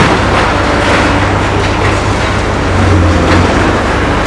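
Caterpillar high-reach demolition excavator's diesel engine working hard, swelling and easing under load, with crunching and clattering as its attachment breaks up concrete and debris falls.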